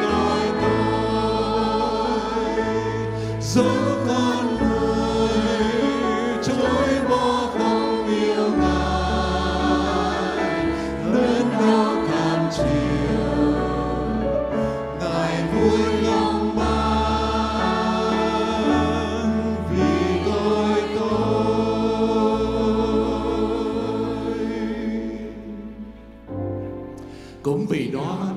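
A choir singing a worship song in Vietnamese over instrumental accompaniment with sustained bass notes. The music fades out a couple of seconds before the end.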